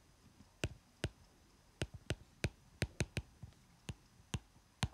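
Stylus tip tapping and clicking on a tablet screen while handwriting: irregular sharp clicks, about three a second, some in quick pairs.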